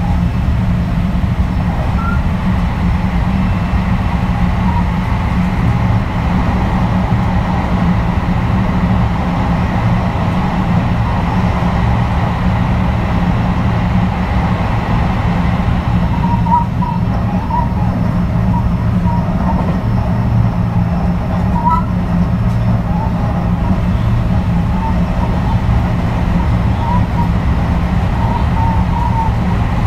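JR West 223 series 2000 electric train running at a steady pace, heard from inside the car: an even rumble of wheels and bogies on the rail. From about halfway through, faint short high squeaks come and go.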